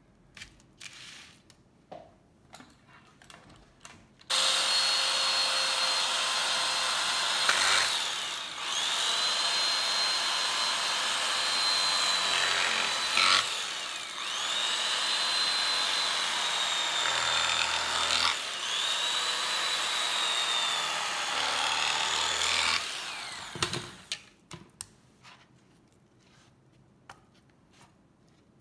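Electric carving knife running as it slices through a rump roast, a steady motor whine whose pitch sags each time the blade bites into the meat and recovers between cuts, several times over. It starts about four seconds in and switches off a little before the end, followed by a few light knocks.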